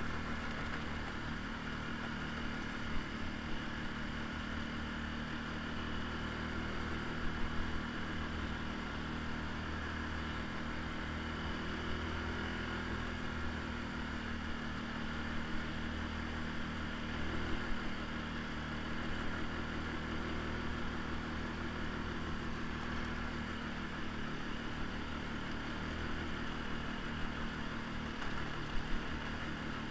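ATV engine running at a steady cruising speed, heard from on board the machine, with a few short knocks from bumps on the dirt track.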